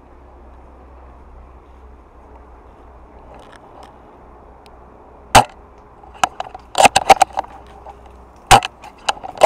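A low steady hum, then sharp loud clicks and knocks: one about five seconds in, a quick cluster around seven seconds, and another near the end.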